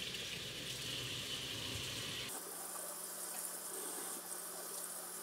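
Kitchen tap running into a stainless steel sink, the water splashing over bell peppers being rinsed by hand. The sound shifts abruptly a little over two seconds in, losing its low rumble and turning hissier.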